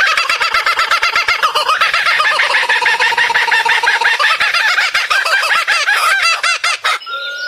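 A flock of birds calling all at once, a dense chatter of many overlapping, rapidly repeated chirps. Near the end the chatter breaks off and a single steady whistled tone is left.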